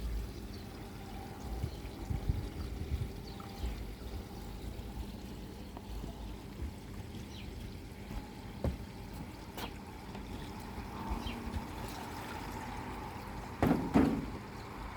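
Water trickling and pouring into a koi pond, with a few sharp knocks and a louder thump near the end.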